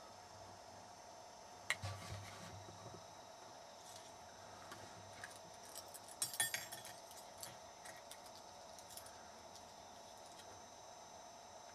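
Auto jiggler (tryout key) being worked in an ATV ignition lock: faint metallic rattling and scraping, with a sharp click about two seconds in and a quick run of clicks around the middle.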